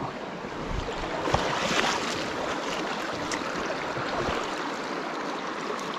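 Shallow river running over rocks, a steady rush of water, with a few short knocks and a louder splashing stretch a second or two in.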